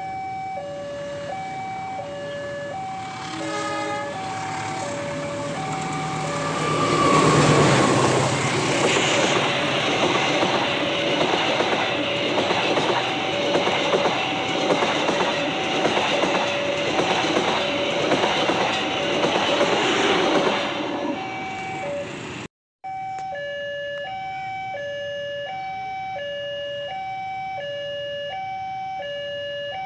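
Two-tone electronic level-crossing alarm alternating steadily while a CC 203 diesel-electric locomotive hauls a passenger train past, with a short horn note about three and a half seconds in. The locomotive is loudest about seven seconds in, and the coaches follow with a rushing rumble and regular wheel clacks until about twenty-one seconds. After a brief cut, only the crossing alarm is left.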